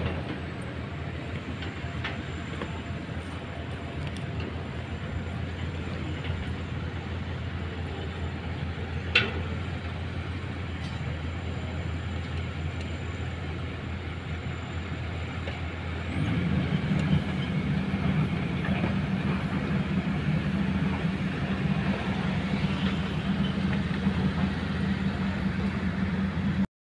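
Kobelco hydraulic excavator's diesel engine running steadily as it digs. A single sharp knock about a third of the way in, and about 16 seconds in the engine note steps up louder as it takes more load.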